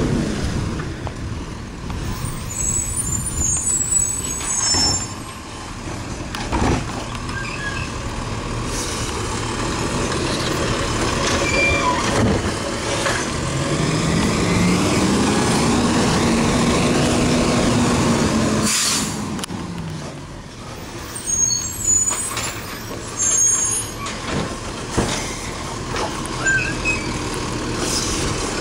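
Automated side-loader garbage truck working at the curb: diesel engine running with clunks and air-brake hiss. In the middle, a whine rises and falls for several seconds as the hydraulic arm lifts a cart, ending in a sharp hiss.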